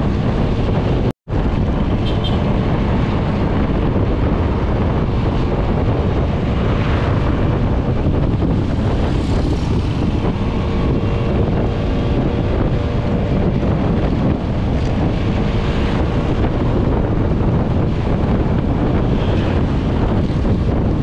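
Heavy wind buffeting the microphone while riding, with a vehicle running steadily underneath, typical of on-bike footage from a classic Vespa Super scooter. The sound cuts out for an instant about a second in.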